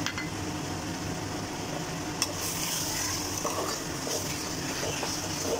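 Chicken masala and green peas sizzling in a metal pot as they are stirred with a slotted spoon, the sizzle growing stronger about two seconds in. A sharp clink of the spoon against the pot comes just before.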